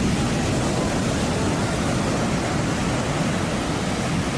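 Steady rushing noise of heavy ocean surf breaking, with no separate crash standing out.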